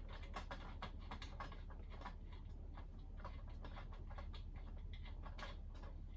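Light, irregular clicks and taps from hands working the belt cover and pulley parts of a WEN benchtop wood lathe, over a low steady hum. The lathe's motor is not running.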